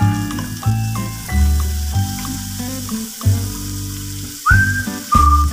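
Background music with sustained low notes that change about once a second, and a higher melody line entering near the end. Under it is the faint sizzle of chopped garlic, onion and spices frying in oil in a pan.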